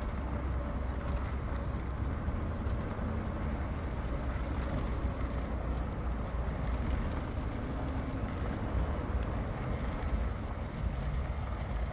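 Car driving at a steady pace, heard from inside the cabin: a constant low rumble of engine and road noise.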